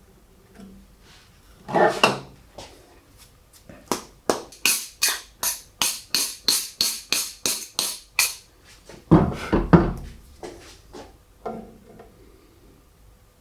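Hand file rasping a plastic part held in a vise: a run of even back-and-forth strokes, about three a second, with heavier knocks of the part being handled before and after.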